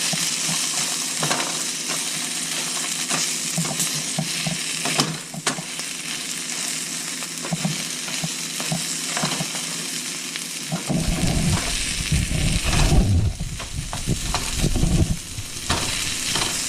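Prickly pear cactus pads (nopales) frying in a pan: a steady sizzle with scattered clicks and knocks. About two-thirds of the way through, a low rumble joins in.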